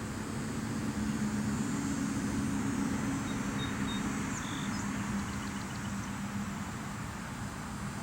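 A motor vehicle passing by: a low engine hum with road noise that swells about a second in and fades after about five seconds.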